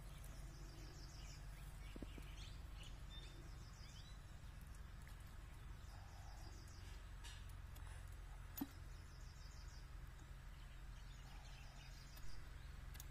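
Faint background with birds chirping in a few short trills over a low steady hum, and one sharp click about eight and a half seconds in.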